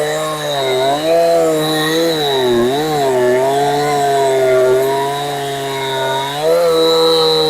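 Two-stroke Husqvarna 372XP-clone chainsaw with a genuine carburettor cutting through wood at high revs. The engine note dips and recovers several times as the saw loads in the cut, dipping deepest about two and a half seconds in.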